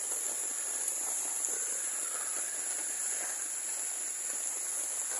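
Insects trilling steadily on two high pitches, over a soft, even hiss of rain.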